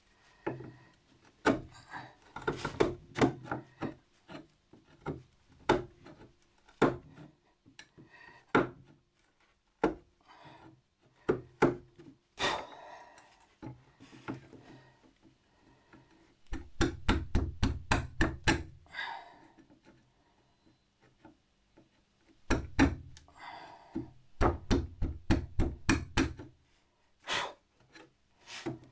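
Chisel being worked into a timber shelf frame: sharp wooden knocks and taps with scraping between them. Two longer runs of quick, heavy taps come in the second half.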